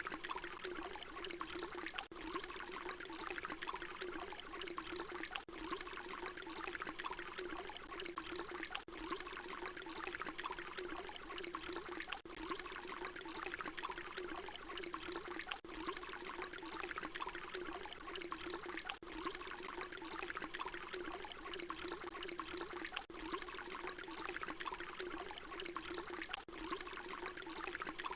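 Water pouring steadily in a continuous stream, with a brief break every three to four seconds where the short recording loops.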